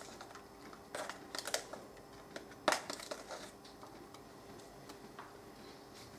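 Short scrapes and clicks of a teaspoon scooping powdered chicken stock and tipping it into a pot of water, a handful of them in the first half, the loudest nearly three seconds in.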